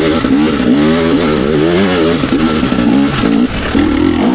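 Dirt bike engine revving hard under load on a steep climb, its pitch swinging up and down quickly as the throttle is worked. From about three and a half seconds in it holds a higher, steadier pitch.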